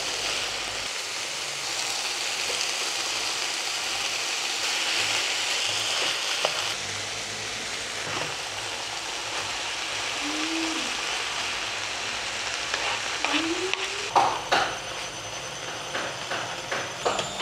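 Ground beef and zucchini frying in a pan with a steady sizzle. About fourteen seconds in, the sizzle gives way to a run of sharp clicks and knocks.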